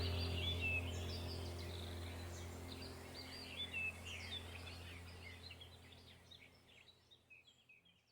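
Birds chirping over a steady low hum, the whole sound fading out steadily and dying away near the end.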